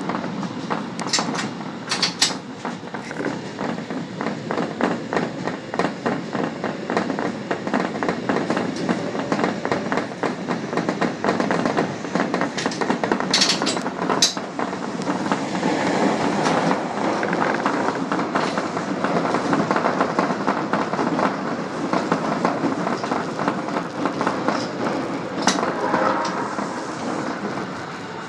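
Subway train running along the line, with a steady rumble of wheels on rail and a quick clatter over the track, plus a few sharp clicks now and then.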